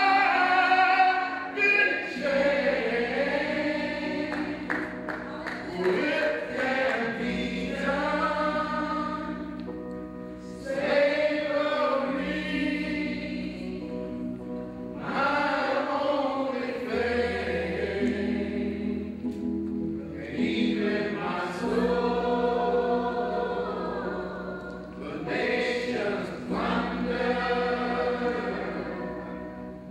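Sung worship: a man's voice leading loudly with a group of voices, over sustained low chords that change every few seconds.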